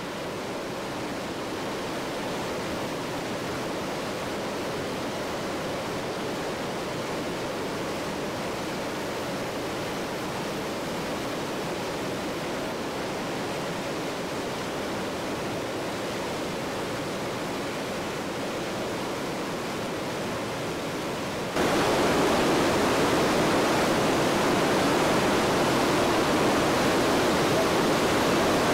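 Steady rushing of water from the Iguazu Falls. About three-quarters of the way in it becomes suddenly louder and fuller, as from a nearer, larger fall.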